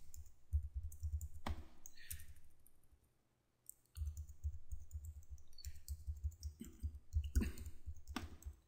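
Computer keyboard being typed on: scattered key clicks, with a pause of about a second partway through.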